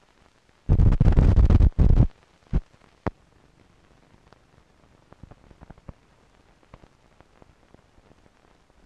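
Worn optical film soundtrack noise: a loud rumbling burst of noise lasting about a second and a half, then faint crackle with scattered sharp pops, and one last pop at the end.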